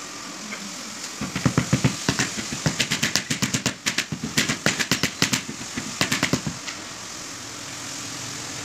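Rubber mallet tapping a marble floor tile to bed it down into the mortar: a quick run of knocks, several a second, starting about a second in and stopping near seven seconds.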